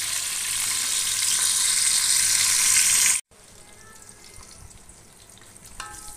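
Sliced onions sizzling in hot oil. The sizzle is loud at first, cuts off abruptly about three seconds in, and carries on much fainter.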